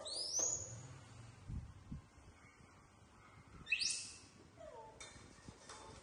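Young macaques giving short high-pitched squeaks: one rising squeal at the start and another about four seconds in.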